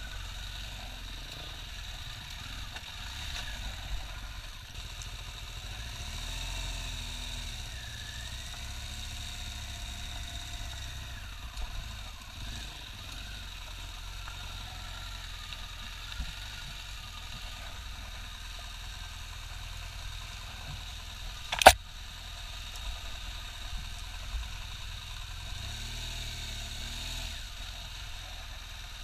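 BMW R1200GS flat-twin boxer engine running at low revs while the bike picks its way along a rough trail, its pitch rising and falling gently now and then. A single sharp knock, the loudest sound, comes about three-quarters of the way through.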